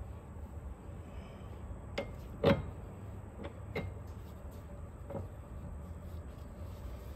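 A few sharp metal clicks and knocks from the tie rod and steering cylinder rod end being turned and shifted by hand, with one louder clunk about two and a half seconds in.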